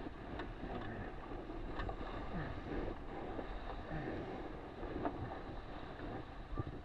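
Water rushing and splashing past the hull of an RS600FF sailing dinghy moving at speed, with wind buffeting the microphone. A few short knocks are heard through it.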